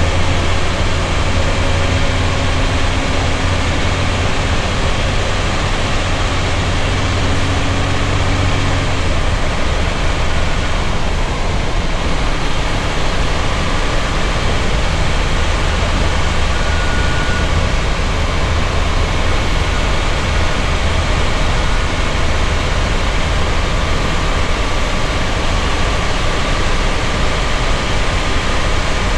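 Leyland Tiger bus's Cummins L10 straight-six diesel running steadily at cruising speed, heard from the driver's cab with road and wind noise. A strong low engine drone fills the first several seconds, then settles into a more even rumble.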